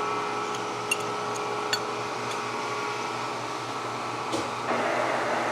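Steady fan-like mechanical hum with a few light clicks about a second and two seconds in; about three quarters of the way through, the hum gives way suddenly to a fuller, hissier drone.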